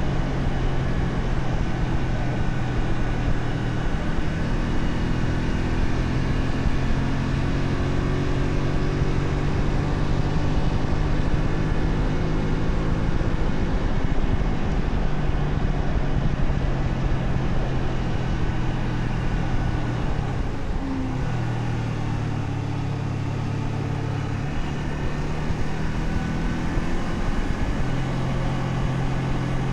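Honda Shadow 125's small V-twin engine running under way at a steady speed. About two-thirds of the way through its pitch breaks briefly and drops, then climbs back near the end.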